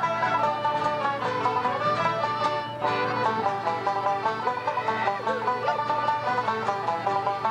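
Banjo and fiddle playing an Irish traditional tune together, a fast, unbroken run of notes.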